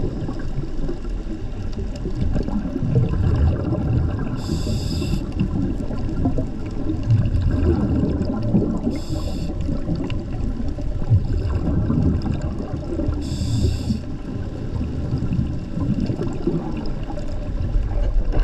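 Underwater sound with a steady low rumble of water moving past the camera. A short hiss, typical of a scuba diver's regulator breath, comes three times, about every four and a half seconds.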